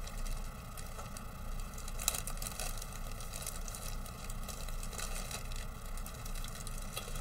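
Thin clear plastic bag crinkling and rustling as a sprue of clear plastic parts is worked back into it by hand, with a denser burst of crinkling about two seconds in.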